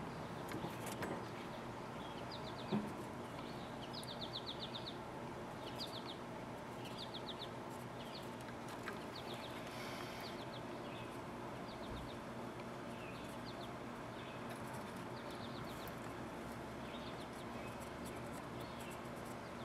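A bird chirping over and over, each call a short rapid trill, about one a second, over a steady low background noise. There is a single knock about three seconds in.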